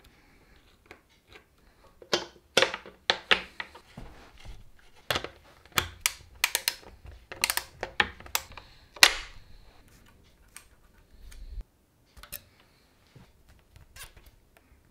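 Irregular sharp clicks and taps of hand tools and metal bike parts as a mountain bike is assembled in a workstand, in quick clusters with short pauses between them.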